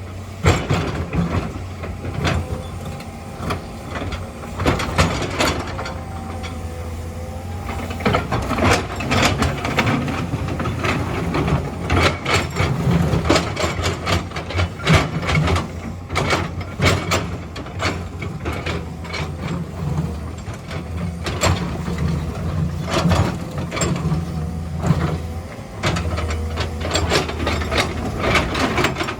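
Excavator at work: its diesel engine runs steadily under many sharp clanks and knocks.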